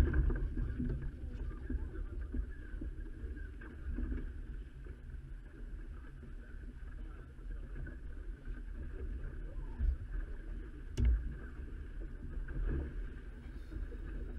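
Wind buffeting the microphone and water rushing past the hull of a Shrimper 19 small sailing boat under way, with a single sharp knock about three-quarters of the way through.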